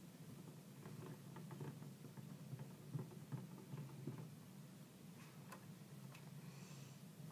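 Small spoon stirring soap batter in a plastic cup: faint, irregular ticks and light scrapes against the cup, over a low steady hum.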